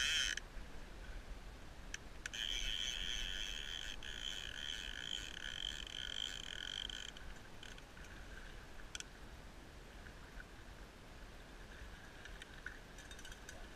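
Fly reel's ratchet check giving a fast run of clicks that blur into a buzz, as line runs through the reel while a hooked salmon is played; a short burst at the start, then a longer run of about five seconds from about two seconds in.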